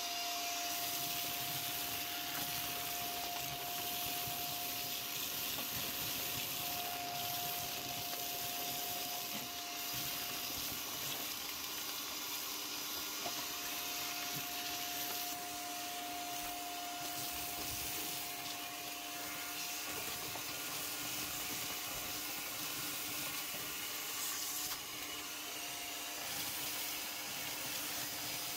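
Vacuum cleaner running steadily, a rushing hiss with a steady whine, as its hose nozzle sucks up rust flakes and dirt from a corroded car floor pan.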